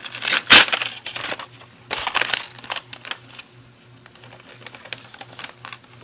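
Wrapping paper being crinkled and torn as a present is unwrapped, in irregular bursts, the loudest about half a second in and another around two seconds, then only faint rustles.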